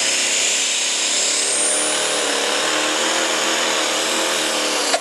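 Light pro stock pulling tractor's turbocharged diesel engine running flat out under load as it drags the sled, with a high whine that rises about a second and a half in.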